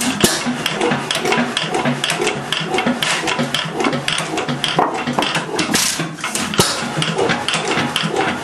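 Root & Vandervoort hoist engine running with a rapid, somewhat uneven clatter of knocks, several a second, after years out of service.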